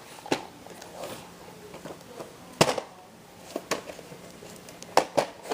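Several sharp clicks and knocks a second or more apart, two of them close together near the end, over a faint steady hum.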